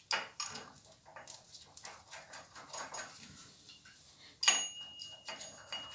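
Small metal clicks and taps as three small bolts are fitted and turned to fix a toothed dividing gear onto the lathe spindle hub. About four and a half seconds in, a sharper metal knock leaves a thin high ringing tone.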